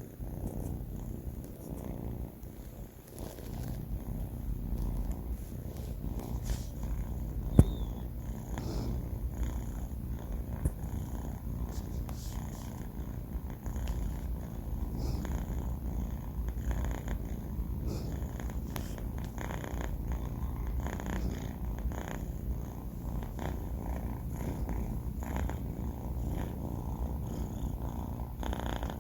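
A sleeping four-month-old kitten purring steadily, a low fluttering rumble. A single sharp click stands out about seven and a half seconds in.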